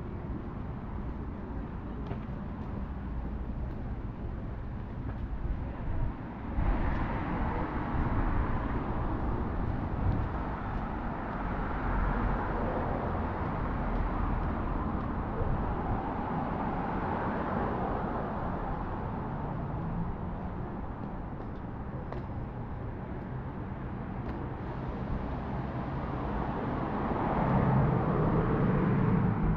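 City street traffic: a steady noise of passing cars that gets louder about six seconds in, with a low engine hum rising near the end.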